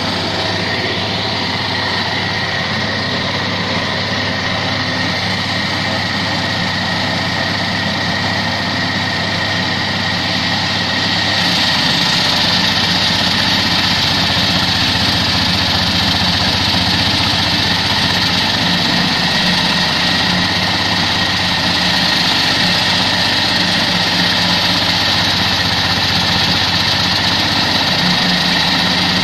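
Walk-behind concrete cutter running steadily, its engine humming while the blade cuts wet concrete with a hiss. About twelve seconds in it gets a little louder and the hiss brighter.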